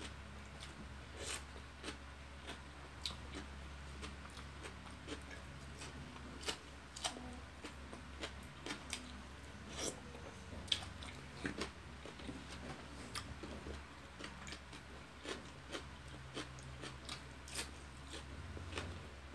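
Close-up sounds of a person eating steamed chicken by hand: irregular wet chewing, lip smacks and sucking sauce off the fingers, many short clicks a second or so apart. A steady low hum runs underneath.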